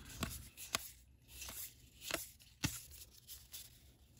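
Baseball trading cards being flipped and slid through the hands, with soft rustling and a few sharp clicks.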